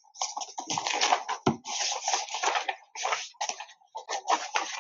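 Sheets of drawing paper rustling as they are handled and sorted, in a run of irregular scratchy rustles, with one low bump about a second and a half in.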